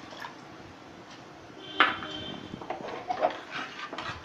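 Milk poured softly into a pan of soup, then a metal spoon stirring it, clinking and scraping against the metal pan; the first clink, about two seconds in, is the loudest.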